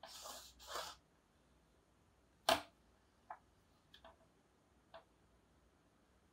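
Marker drawn along a ruler on a small whiteboard: two short strokes in the first second, then a loud click about two and a half seconds in and a few faint ticks as the ruler and marker are handled.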